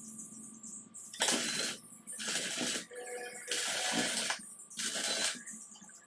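Four short bursts of harsh, hissing metalworking noise, each about half a second to a second long with short pauses between them, over a faint steady tone.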